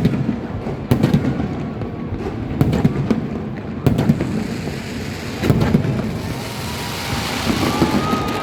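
Fireworks going off: several sharp bangs a second or more apart over a constant low rumble, with thin rising whistles near the end.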